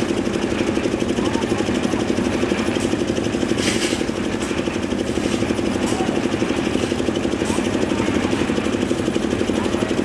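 An engine running steadily at a construction site, with a fast, even throbbing beat.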